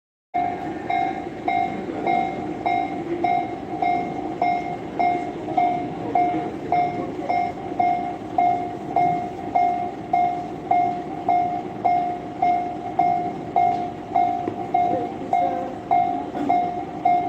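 Japanese level-crossing warning bell ringing its repeated electronic ding, about two a second, over the rumble of a train running through. It starts abruptly about half a second in.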